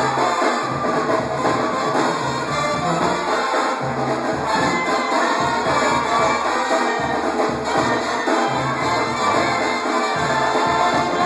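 Live banda music: a brass band playing, with a sousaphone carrying the bass line in separate notes under clarinets and brass.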